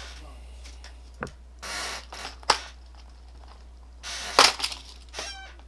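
Small hard parts being handled on a workbench: a few separate clicks and knocks, the loudest cluster about four seconds in and a short rattle just after it, over a steady low electrical hum.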